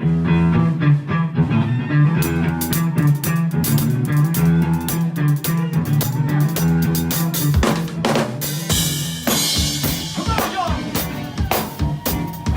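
Live band playing: a drum kit with bass drum, snare and cymbals drives the song over steady bass notes.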